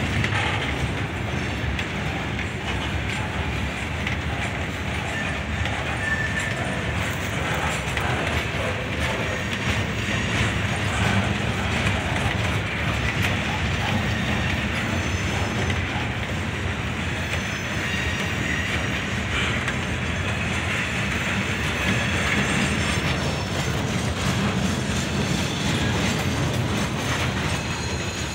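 Ballast hopper cars of a freight train rolling past, a steady rumble and clatter of steel wheels on the rails, with brief high wheel squeals now and then.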